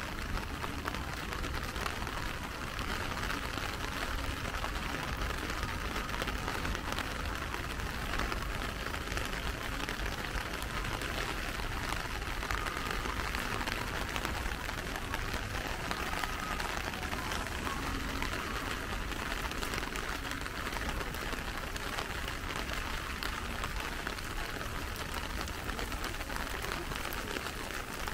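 Steady rain falling, a continuous patter of raindrops.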